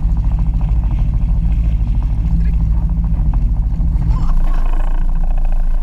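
Jet ski running on the water: a loud, steady low rumble with a fast, choppy pulsing through it, and a higher-pitched layer joining about four seconds in.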